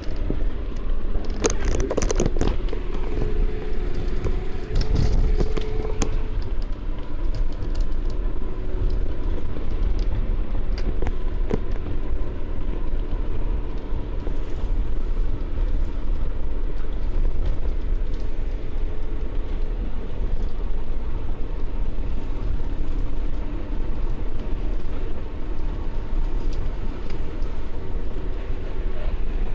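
BMW E30 driving with road rumble and a steady droning tone from the drivetrain, which the owner suspects comes from the transmission. The noise persists despite a new propshaft support bearing and flex disc.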